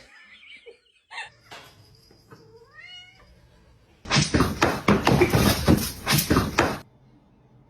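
Domestic cat meowing: a rising meow about two and a half seconds in. It is followed by a much louder harsh, noisy stretch of nearly three seconds that cuts off suddenly.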